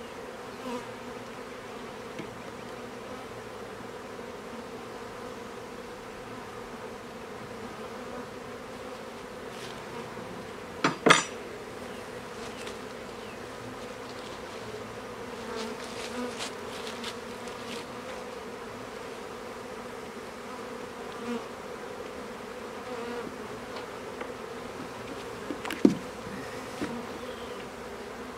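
Honeybees buzzing in a steady hum around newly opened hives as nucs are installed. There is a sharp knock about eleven seconds in and another near the end, as hive equipment is handled.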